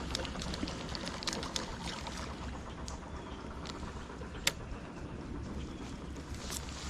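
Ambient sound on the river around a fishing kayak: a steady low rumble and hiss, broken by a few sharp clicks, the loudest about four and a half seconds in.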